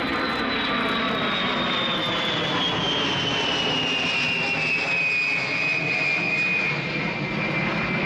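Boeing E-3A Sentry AWACS flying past low overhead on its four TF33 turbofan engines: a steady jet roar with a high whine that slowly drops in pitch as the aircraft passes and draws away.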